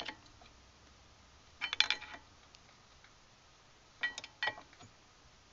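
Metal clinks and scrapes of a large screwdriver levering against the brake pad and caliper to push the pistons of a multi-piston front brake caliper back into their bores. They come in three short clusters of sharp, slightly ringing clicks, about two seconds apart.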